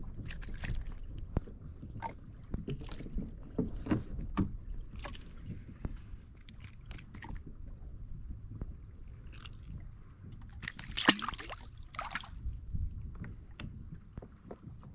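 Water lapping and sloshing against a fishing kayak, with scattered knocks and clicks from gear on board; the sharpest knock comes about eleven seconds in.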